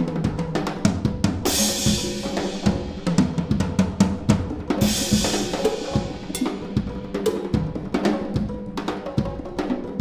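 Drum kit solo in a rumba feel: fast, dense strokes on snare, toms and kick drum, with the left foot keeping a clave pattern. Cymbal crashes ring out twice, about a second and a half in and again about five seconds in.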